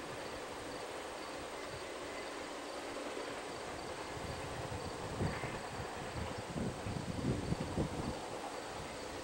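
Insect chorus in open fields: a steady, faintly pulsing chirp, with a few low rumbles in the second half.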